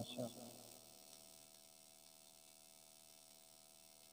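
Near silence with a faint, steady electrical mains hum from the sound system; the tail of a voice dies away in the first half second.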